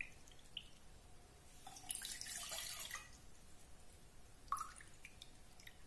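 Water being poured into a pan for a herbal decoction: a short, faint pour about two seconds in, lasting about a second, with a few light knocks of a cup or utensil.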